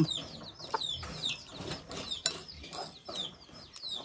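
Chickens in a farmyard: a run of short, high chirps falling in pitch, repeated again and again, with a sharp click about two seconds in.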